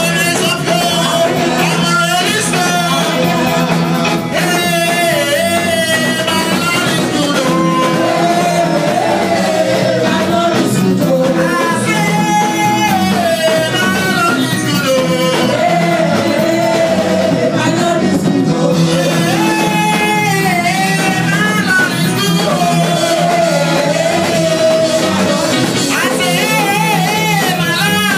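Live gospel praise-and-worship music: a band playing while vocalists sing a wavering lead melody.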